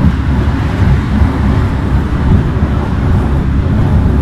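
Loud, steady low rumble of a moving elevated amusement-park ride, heard from on board.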